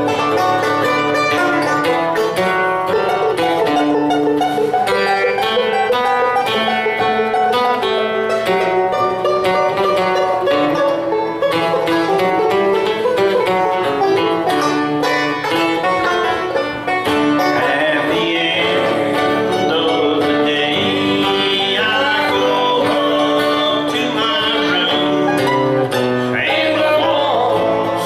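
Banjo and acoustic guitar playing a country song together, the banjo picking quick runs of notes over the guitar.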